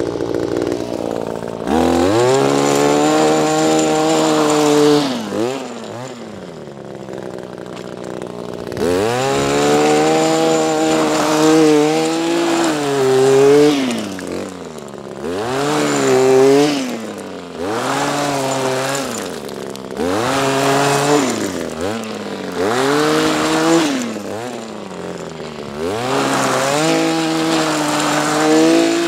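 Echo PAS-266 power head's small two-stroke engine driving the Pro Paddle power broom, revving up and dropping back over and over. It idles at the start and again for about three seconds about a quarter of the way in, then rises and falls every two to three seconds.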